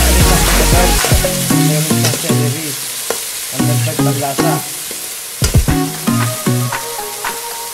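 Chopped tomatoes, onions and green onions sizzling in hot oil in a wok while a spatula stirs and scrapes them around the pan, with a few sharp scrapes against the pan. Background music plays along.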